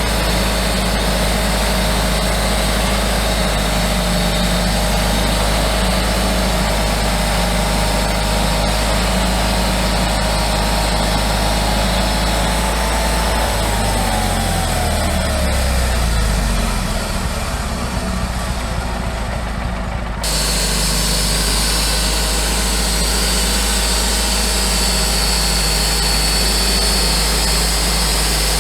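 Homemade sawmill's engine running steadily, with a whine that drops in pitch about halfway through. The sound changes abruptly a few seconds later.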